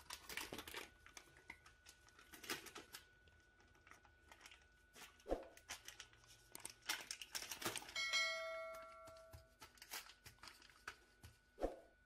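Baking paper crinkling and rustling in irregular crackles as hands roll minced meat up in it on a countertop. About two-thirds of the way through, a short steady ringing tone sounds for a second or so, the loudest thing heard.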